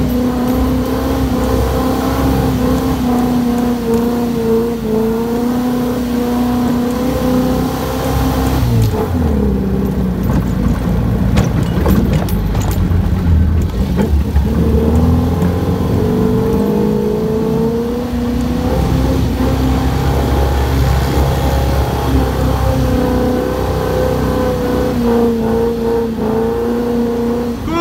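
Dune buggy engine running hard at steady high revs, its pitch sagging about nine seconds in and climbing back, with a heavy low rumble for several seconds afterwards.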